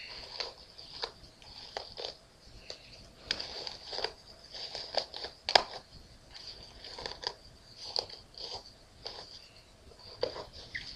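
Hairbrush bristles raked through tightly coiled natural hair in repeated strokes: short crackly, crunchy rasps at an irregular pace, about one or two a second.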